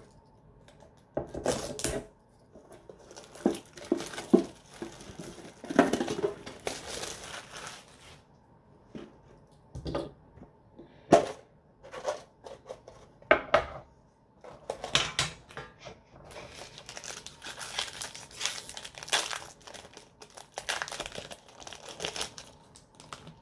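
Plastic wrap and foil booster packs of a Yu-Gi-Oh! mega tin crinkling and tearing as they are handled and opened, in irregular bursts. A few sharp clacks of the metal tin come in between, the loudest about 11 seconds in.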